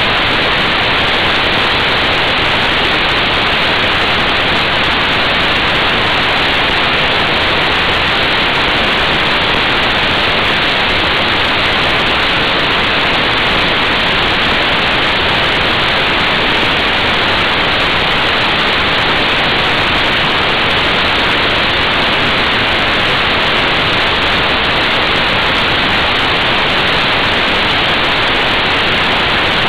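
Steady, loud wind rush on the microphone of a camera mounted on a motorcycle at motorway speed, with no engine note standing out.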